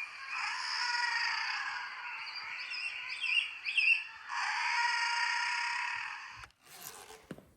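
Recorded common guillemot calls played through a museum listening-station handset, sounding thin through its small speaker: continuous calling with a few higher chirps about three to four seconds in, stopping about six and a half seconds in, followed by a few faint clicks.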